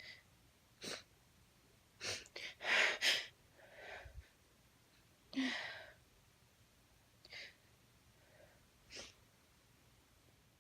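A woman sneezing in several short, sharp bursts with breaths between, the loudest about three seconds in and another about five and a half seconds in. The sneezes are brought on by chhinkni sneezing powder sniffed to tickle her nose.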